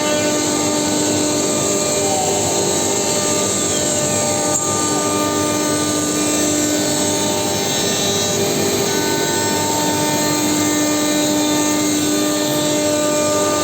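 CNC router spindle milling 12 mm MDF: a steady, loud machine whine over the rushing noise of the cut.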